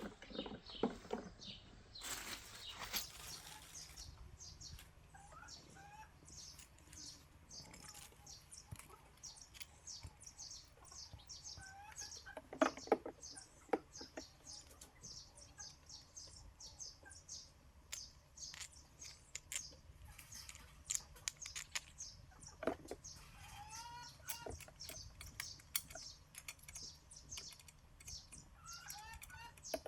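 Chickens clucking and small birds chirping, with scattered sharp clicks, a brief rustle about two seconds in and a louder knock about halfway.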